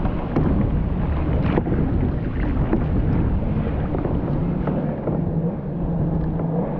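Wind rumbling on the microphone, with a steady low drone joining about four seconds in.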